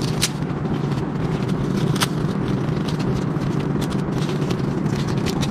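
Tent-frame poles being fitted into a plastic connector: two sharp clicks, about a quarter second and two seconds in, over a steady low hum.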